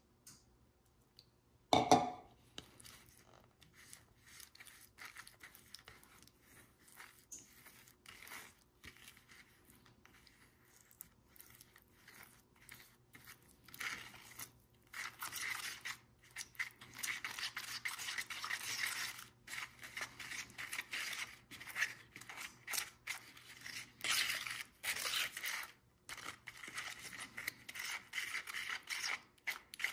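A plastic spoon stirring and scraping a thick grout mix against the sides of a plastic tub, in short, irregular strokes that grow busier in the second half. A single sharp knock about two seconds in.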